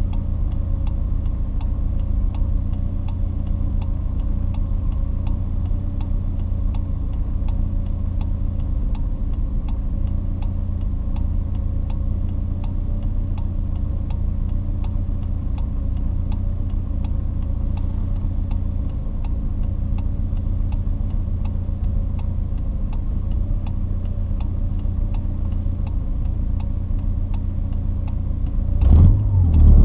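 Porsche 944's 2.5-litre four-cylinder engine idling steadily, with a faint even ticking of about three ticks a second. Near the end it revs up sharply as the car moves off.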